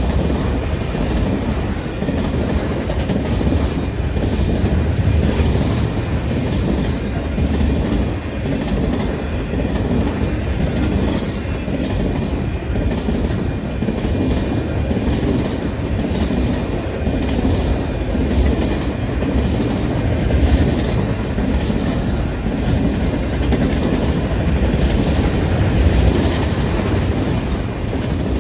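A train rolling past at steady speed: a continuous rumble of cars with the rhythmic clickety-clack of wheels over the rail joints.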